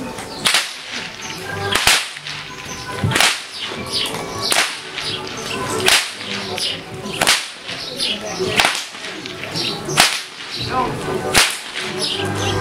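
A Hungarian herdsman's whip (karikás) cracking in a steady rhythm, nine sharp cracks about one and a half seconds apart.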